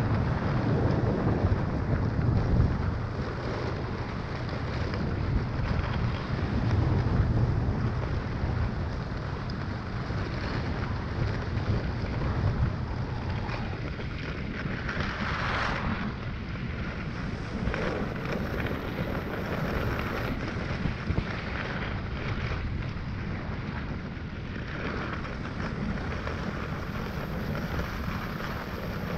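Skis sliding and scraping over packed snow during a downhill run, with wind rumbling on the camera microphone. A louder swish about halfway through, as on a turn.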